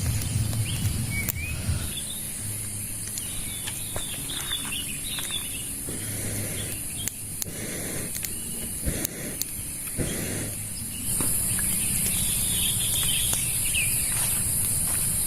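Outdoor ambience: birds chirping over a steady high-pitched hiss or insect drone that grows louder about eleven seconds in, with scattered light taps.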